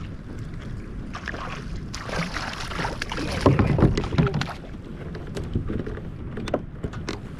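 Water splashing and sloshing at the side of a kayak as a hooked fish is brought in, loudest from about three and a half to four and a half seconds in, followed by scattered light clicks and knocks.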